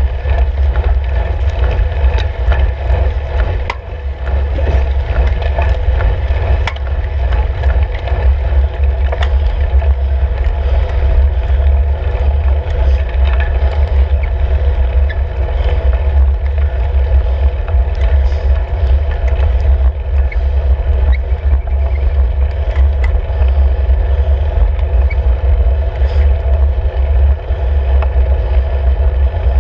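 Steady low rumble of wind buffeting and road vibration picked up by a handlebar-mounted camera on a road bike riding on asphalt, with scattered light clicks and rattles.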